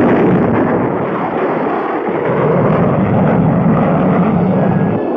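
Cartoon rocket-engine sound effect: a loud, steady rushing blast that starts abruptly as a dart-shaped rocket fires its engine and launches from its mother ship.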